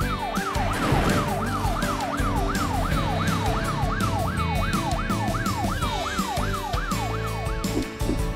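Police siren in a fast up-and-down yelp, about three sweeps a second, cutting off shortly before the end, over background music.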